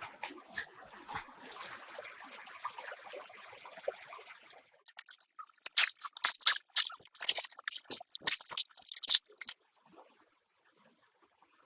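Water trickling with small drips and splashes, then a run of sharp crackling, crunching clicks for about four seconds that stops abruptly.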